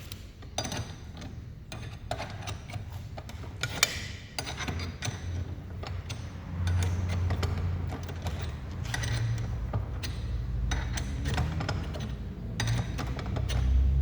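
Irregular metallic clicks and knocks of a hand-pumped bushing press being worked, pressing a new rubber bushing into a car's front control arm.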